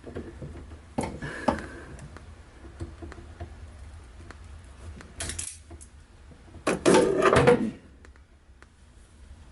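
Clicks and clatter of a hand wire stripper at work on an electrical wire, with a louder, longer bout of rattling handling about seven seconds in.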